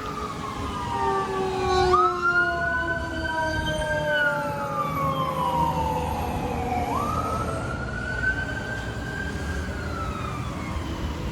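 Emergency vehicle siren wailing, its pitch sweeping up quickly and falling slowly in long cycles, with a low traffic rumble underneath.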